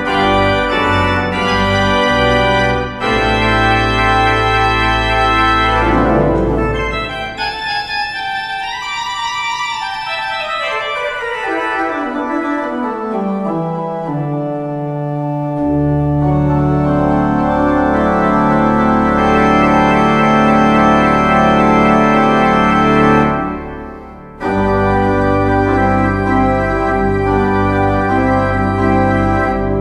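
Organ music in full sustained chords. About six seconds in the bass drops away and the upper voices carry on alone, the bass coming back in after about sixteen seconds; a brief dip in volume around twenty-four seconds before the full chords resume.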